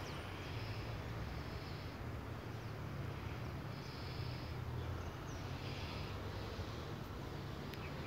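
Outdoor ambience by a stream: a steady low rumble under short high buzzes from insects, four or five of them, each lasting under a second.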